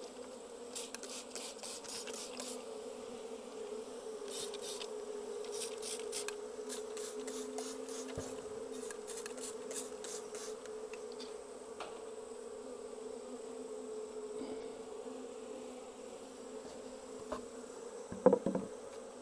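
A colony of Japanese honeybees buzzing steadily in an open hive. Over the first ten seconds comes a run of quick spritzes from a hand trigger spray bottle, misting the frames with diluted Ehime AI against wax moths. A few knocks follow near the end.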